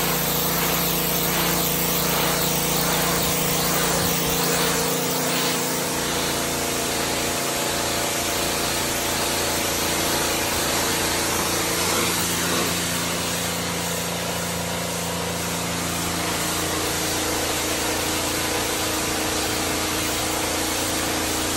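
Pressure washer spraying a concrete floor: the jet gives a steady hiss over the constant hum of the machine's motor and pump.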